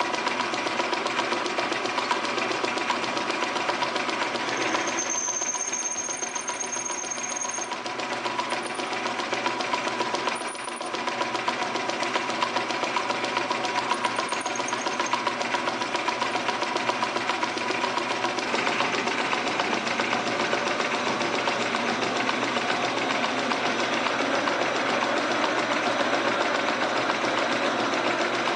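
Metal lathe running with a steady mechanical clatter and fast, even ticking, while a twist drill in the tailstock bores into a pulley blank. The sound changes about two-thirds of the way through, and a brief high whistle comes about five seconds in.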